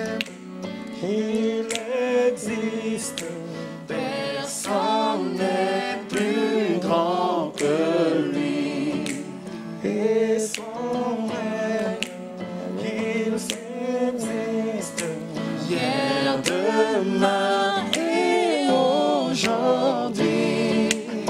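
A gospel hymn sung by a worship leader's voice over electronic keyboard accompaniment, the melody moving continuously over a steady low backing.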